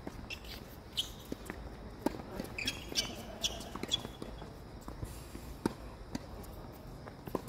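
Tennis balls struck by rackets and bouncing on the court during a doubles rally: a string of sharp pops, roughly one every half second to second.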